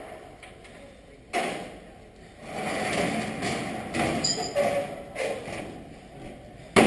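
Metal loading ramps of a flatbed tow truck being pulled out and set down. A thud comes about a second in, then scraping and knocking, and a loud bang near the end.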